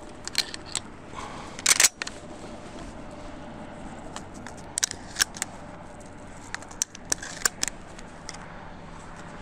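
Footsteps crunching through cold, deep snow. The crunches come as scattered sharp strokes in small clusters, the loudest about two seconds in, over a steady faint hiss.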